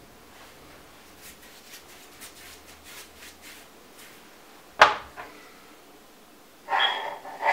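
Faint soft strokes of a pastry brush spreading oil and butter over rolled roti dough. About five seconds in, a sharp knock as the brush is set down and a kitchen knife taken up. Near the end, the knife blade scrapes briefly through the dough against the marble counter, with a thin ring.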